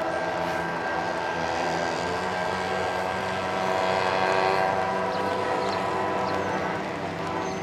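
Approaching diesel locomotive, its engine running with a steady, many-toned drone that swells slightly about four seconds in.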